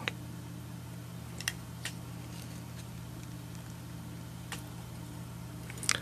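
Quiet room tone with a steady low hum, and a few faint ticks from fingers handling the thread and tail barbs on the hook.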